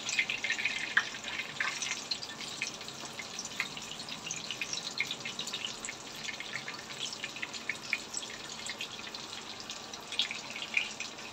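Breaded chicken breasts shallow-frying in hot olive oil in a frying pan: the oil sizzles with a steady run of small crackles and pops, busier in the first couple of seconds and again near the end.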